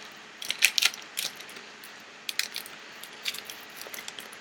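Trading-card pack wrapper crinkling and cards being handled as the pack is opened: a scatter of short, irregular crackles and ticks.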